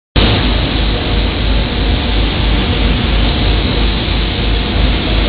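Puffed-snack extruder line running: a loud, steady machine noise with a constant high whine and a low rhythmic throb underneath.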